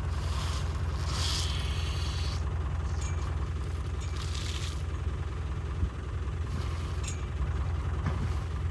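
A vehicle engine idling steadily with a low rumble. Over it come short hissing splashes of water as an African elephant lifts water in its trunk and lets it spill onto the mud, most clearly about four seconds in.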